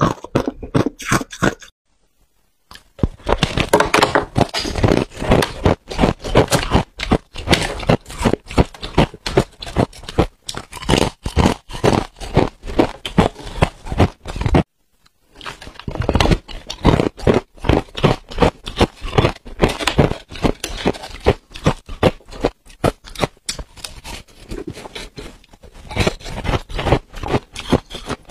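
Close-up crunching and chewing of freezer frost ice: rapid crisp crackles and crunches as the frosty ice is bitten and chewed, stopping briefly twice.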